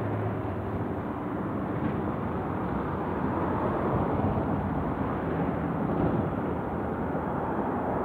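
Steady rumble of road traffic passing, a continuous even noise with no distinct events.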